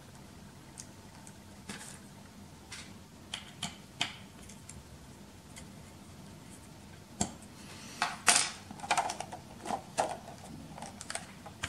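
Light, scattered clicks and taps of small screws and an Allen key against a resin tank's metal FEP-film clamping frame as the screws are set in and turned. The clicks come more often in the second half.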